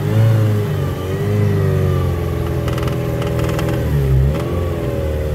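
Mercury 110 two-stroke outboard motor running under way, its pitch wavering up and dipping about four seconds in as it begins to bog down: a fuel-mixture problem that the owner traces to the choke working its way closed.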